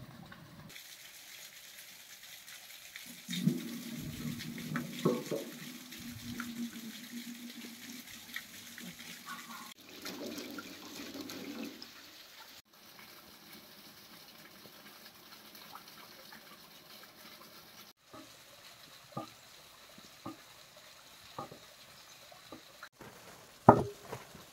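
Water running and splashing in several stretches, over a faint steady hiss, with abrupt cuts between stretches and a sharp knock near the end.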